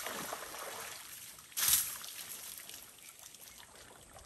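Water splashing and trickling, with one louder splash about one and a half seconds in, then fading to a faint trickle.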